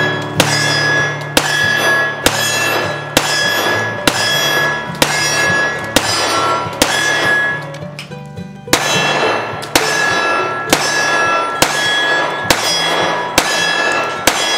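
Dan Wesson 1911 pistols in .45 ACP fired at a steady pace, about one shot a second, with a short break a little past halfway. Each shot is followed by a ringing metallic clang at a different pitch, as steel targets are hit. Low background music plays underneath.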